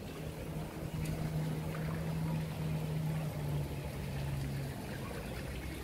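A motor hums steadily over outdoor street hiss. Its pitch steps down slightly a little over three seconds in, and the hum stops near the end.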